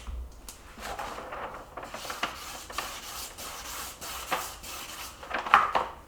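Irregular rubbing and scraping noises with scattered light clicks and knocks.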